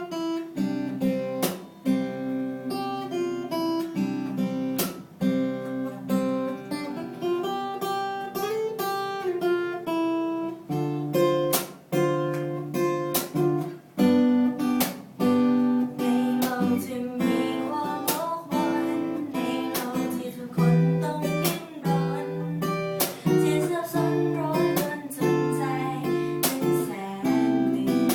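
Acoustic guitar strumming chords, playing a song accompaniment with regular strokes and changing chords.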